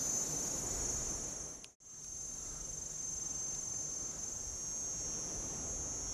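A steady high-pitched drone of insects in tropical forest, over a low rumble, cut off briefly about two seconds in before carrying on.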